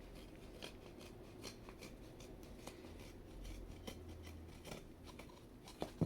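Scissors cutting open a poster package, a run of faint snips and scrapes.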